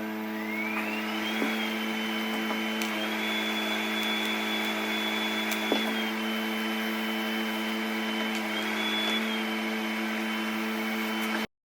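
TIG welding arc from a Miller 220 welder: a steady electric buzz with a high whine. The whine rises as the arc starts, shifts up and down in steps, and cuts off suddenly near the end.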